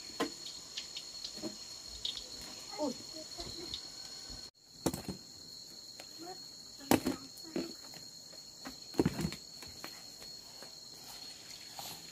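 Steady high-pitched chirring of insects, with scattered knocks and clatter, the loudest about seven and nine seconds in.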